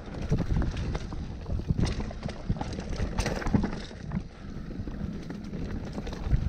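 Mountain bike riding fast down a dirt singletrack: wind rushing over the microphone, with the tyres on dirt and frequent rattling clicks and knocks from the bike over bumps.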